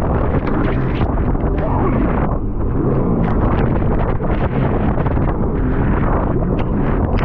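Wind buffeting the microphone: a steady, loud noise with small crackles throughout.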